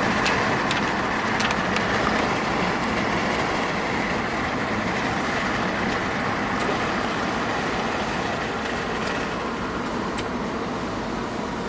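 Ford Transit Connect van driving, its 1.6-litre EcoBoost engine and road noise heard from inside the cab as a steady drone that eases slowly in level, with a few faint clicks.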